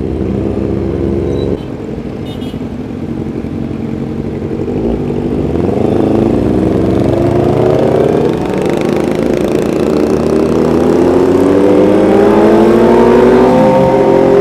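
Motorcycle engines in a riding group pulling away. The note drops back about a second and a half in, then climbs steadily in pitch over the second half as the bikes accelerate.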